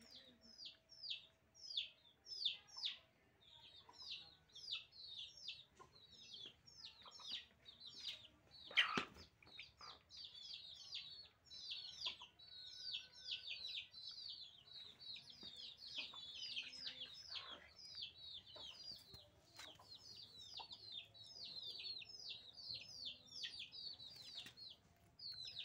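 Young chickens peeping without pause: short, high, downward-sliding peeps, several a second. There is one louder sharp sound about nine seconds in.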